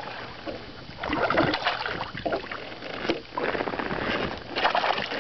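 Water splashing and rustling, knocking handling noise as a hooked fish is brought into a landing net beside a boat.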